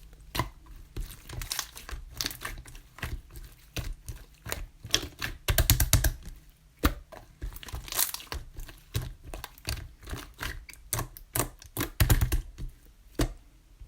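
Clear slime being squished and worked by hand, giving a fast, irregular run of sticky clicks and crackling pops, with louder bunches of pops about halfway through and again near the end.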